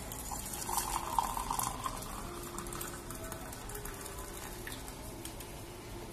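Liquid being poured into a mug, loudest for the first second or two and then settling to a quieter, steady trickle.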